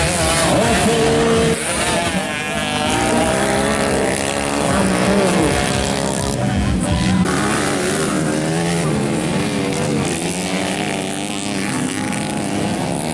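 Several motocross dirt bikes racing, their engines revving up and down as they pass, several pitches overlapping.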